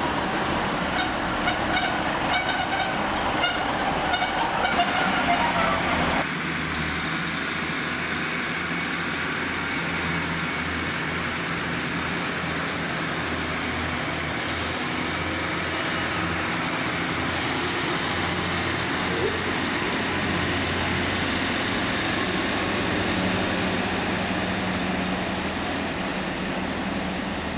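Northern Class 156 diesel multiple unit pulling away. For the first six seconds a whine climbs in pitch as it accelerates. After that a steady low drone of its underfloor diesel engines runs on.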